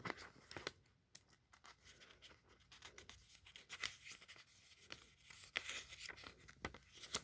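Pages of a paper instruction manual being turned and handled: faint, scattered soft rustles and small clicks.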